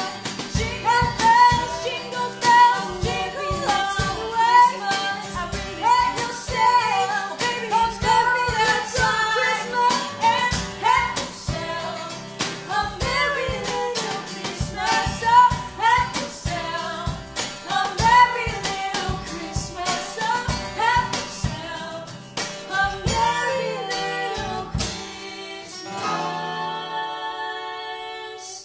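Two women singing a Christmas song in harmony, backed by acoustic guitar, keyboard and steady hand percussion. About 25 seconds in the percussion stops, leaving held voices and sustained chords.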